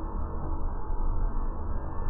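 Ambient drone: a steady deep rumble under sustained humming tones, with no distinct beats or strikes.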